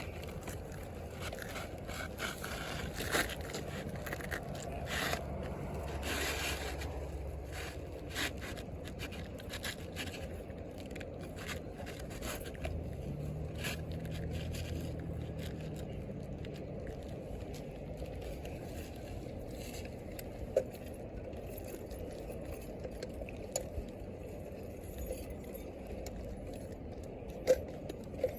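Asphalt roof shingles scraping and rustling against the roof as replacement shingles are worked into place, with a few sharp clicks later on over a steady low rumble of wind or outdoor air.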